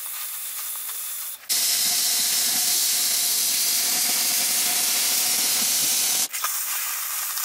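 Oxyacetylene cutting torch with a size 0 tip hissing as it cuts through a steel pipe wall. The hiss jumps louder about a second and a half in, holds steady with a faint whistle, and drops back a little near the end.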